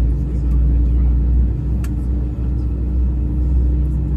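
Steady low rumble with a constant hum inside an Airbus A320's cabin on the ground before takeoff, from the aircraft's engines and air systems running. A light click sounds about two seconds in.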